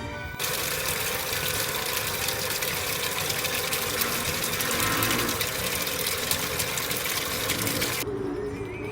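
Washing machine running a tub-cleaning wash: a steady, dense rush of water and motor noise that starts just after the music stops and cuts off near the end.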